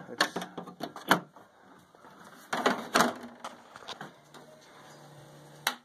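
Clicks and knocks from handling a riding mower's plastic hood and headlight toggle switch. They come in two clusters, in the first second and about three seconds in, with one sharp click near the end.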